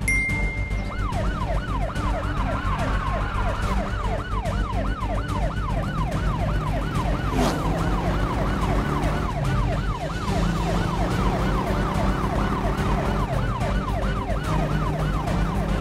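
Police siren in a fast yelp, its pitch sweeping down and back up about three times a second without a break.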